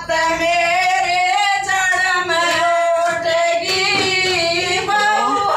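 Women singing a Hindi devotional bhajan together in long held notes, with hand clapping.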